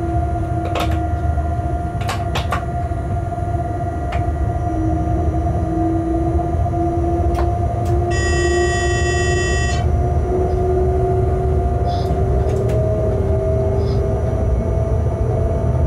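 Locomotive cab noise while running: a steady low rumble with a motor whine that slowly rises in pitch, and a few short clicks from the track. About eight seconds in, a steady tone with many overtones sounds for nearly two seconds.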